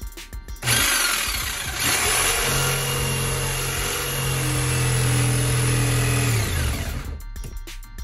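Corded electric saw starting about a second in and cutting into cabinet wood for about six seconds, then its motor winding down with a falling pitch and stopping.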